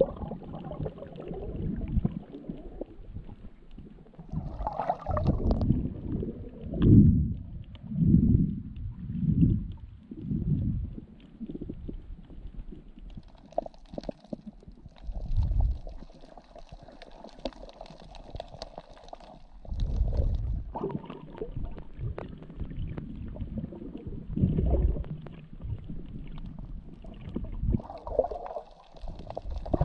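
Muffled underwater sound from a camera held below the surface: low rumbling and sloshing of water, coming in irregular swells that run about a second apart for a stretch in the middle.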